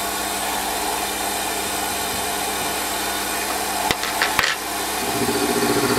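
Warco lathe spindle turning a 12 mm milling cutter at 376 rpm as it cuts a slot in metal held on a vertical slide: a steady cutting noise, with two sharp clicks about four seconds in. Just after five seconds a low, pulsing engine drone starts up in the background.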